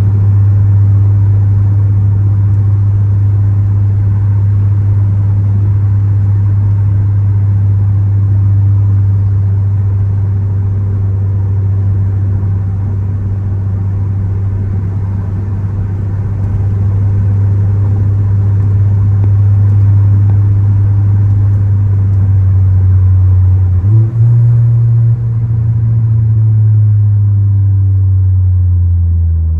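Ford Focus ST's turbocharged four-cylinder engine running steadily at cruise with a low, even drone. About 24 seconds in the pitch steps up as the revs rise, then drops away near the end.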